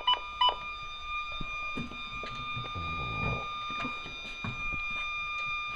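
Siren sounding: two short beeps, then a steady high tone held for several seconds, cut off with a sharp click near the end.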